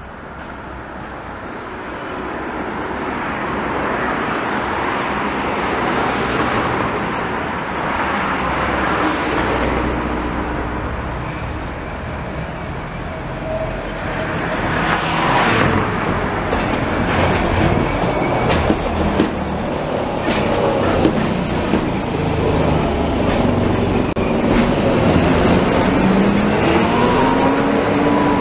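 SGP/BBC-built electric railcar of the Budapest rack railway running along the track, its rolling and running-gear noise growing louder as it approaches and passes. A rising whine comes in near the end.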